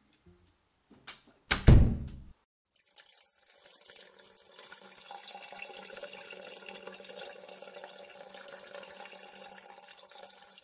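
A door thuds shut, then a steady stream of running water follows for about eight seconds and stops suddenly.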